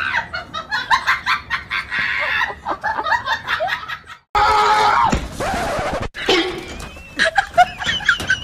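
A person laughing in quick breathy bursts for about four seconds. After a brief gap comes a louder, rough noisy stretch, then scattered clicks.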